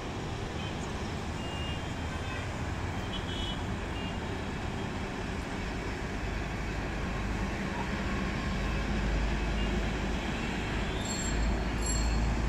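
Steady wash of distant road traffic from a busy multi-lane city road carrying buses, cars and auto-rickshaws, with a few faint short high beeps. A low rumble grows louder over the second half.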